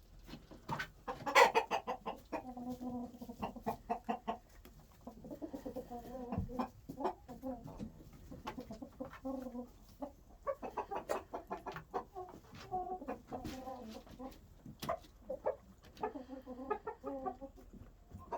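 Roosters clucking in several bouts of low, rapid clucks.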